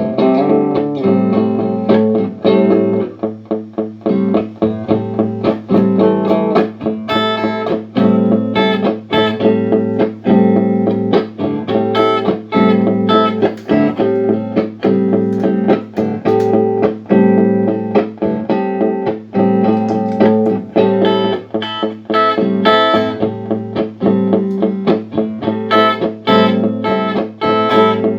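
Guitar played through a Boss RC-1 loop pedal: a recorded phrase repeats about every two seconds over a held low note, with more guitar picked on top. This is the looper playing back, its loop function working after repair.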